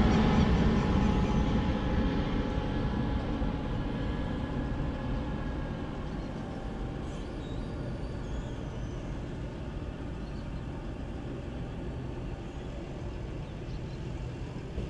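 Airbus A320neo jet airliner climbing away after takeoff, its Pratt & Whitney PW1100G geared turbofans giving a steady roar that fades steadily as the aircraft recedes.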